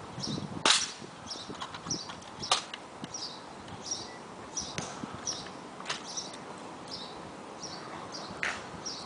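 A bird chirping over and over, a short high call about every two-thirds of a second, with a few sharp clicks cutting in, the loudest about a second in and others near the middle and near the end.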